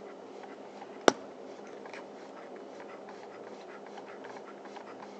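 Arriflex 16S film camera's mechanism turned slowly by hand: faint light clicking and scratching of its gears and film transport, with one sharp click about a second in.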